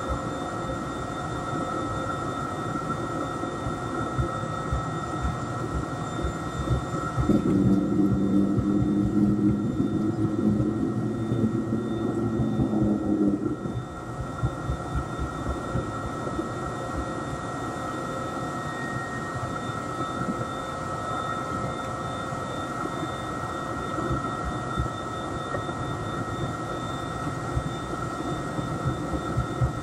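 Jet engines of a Boeing 787-8 heard from inside the cabin while the airliner taxis: a steady whine over a running engine rush. About seven seconds in, a louder low hum comes in for roughly six seconds, then fades back to the steady taxi sound.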